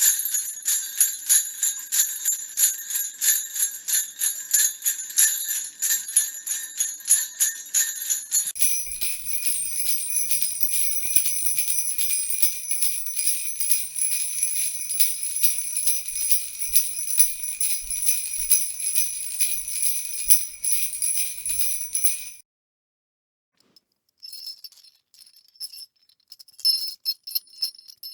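Jingle bells shaken in a quick, steady rhythm. About eight seconds in the ring changes to a different set of bells, which stops abruptly about 22 seconds in; after a brief silence a fainter, sparser jingling starts.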